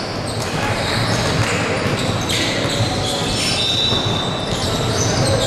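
Basketball game sounds echoing in a large gym: the ball bouncing on the hardwood floor, sneakers squeaking briefly, and players' voices in the background.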